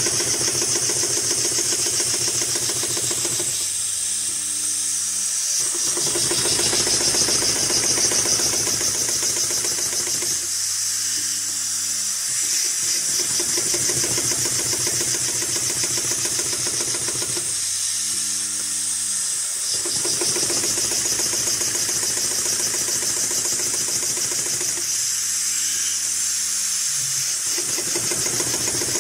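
HighTex 733CS extra-heavy-duty walking-foot industrial sewing machine stitching through a thick stack of polyester webbing sling in rapid runs of about five seconds. It stops briefly four times, leaving only a low motor hum in each pause. A steady high hiss runs underneath throughout.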